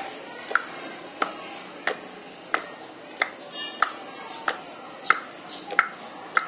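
Sharp ticks at a steady, even pace, about three every two seconds, like a clock or a beat.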